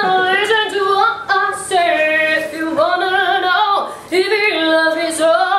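A woman singing unaccompanied in a strong, high voice, holding long notes with a wide vibrato and breaking briefly between phrases.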